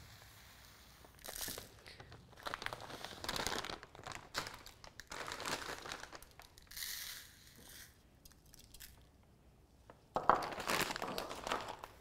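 A plastic bag of wild finch bird seed crinkles and rustles in the hands as seed pours from it into a glass bowl. There are several bursts over the first seven seconds, a lull, then a louder rustle of bags being handled near the end.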